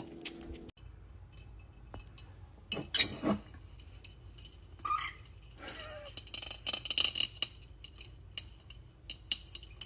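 Scattered light clinks and knocks of small hard objects, with a louder knock about three seconds in.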